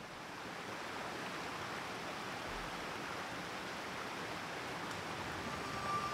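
Steady, even rushing outdoor ambience, like wind or flowing water, with no speech. Near the end a faint steady hum of several tones comes in over it.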